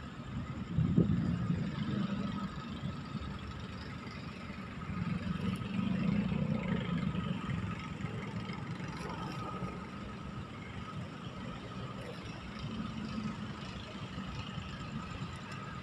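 Road traffic: cars and other vehicles passing, a low engine and tyre rumble that swells about a second in and again around five to seven seconds in.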